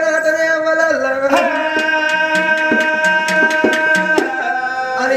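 Folk music accompaniment: steady held notes that shift pitch a few times, with quick hand-drum strokes at about four or five a second from about a second in until near the end.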